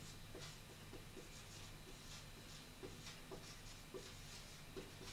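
Faint dry-erase marker writing on a whiteboard: a series of short, soft scratchy strokes and ticks as a word is written letter by letter.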